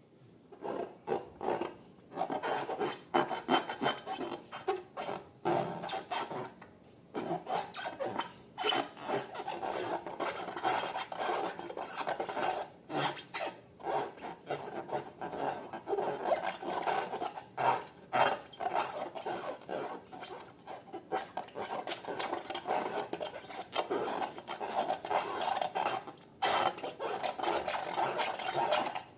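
Slime being worked by hand or tool, giving dense, irregular sticky crackling and rubbing sounds with a couple of brief pauses.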